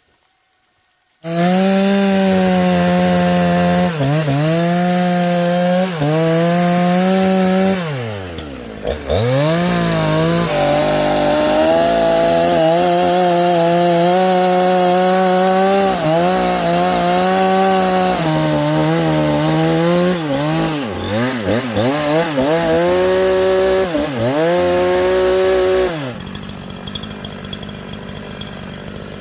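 Two-stroke chainsaw cutting through a large log at full throttle, coming in suddenly about a second in. Its revs dip briefly again and again as the chain bogs in the wood, fall steeply once about a third of the way through before climbing back, then drop to a lower, quieter running speed near the end.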